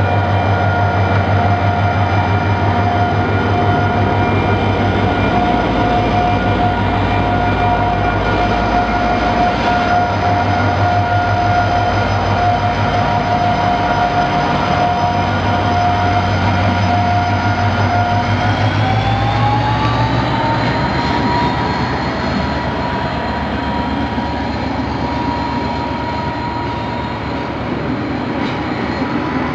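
KiwiRail DFT-class diesel-electric locomotive hauling a passenger train past: a loud, steady engine drone with a pulsing low throb and a whine. About 19 seconds in, the whine rises in pitch and the low throb fades as the locomotive draws away and the carriages roll by.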